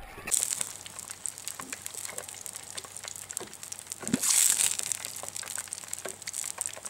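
Wood campfire crackling and popping, with a louder hiss about four seconds in.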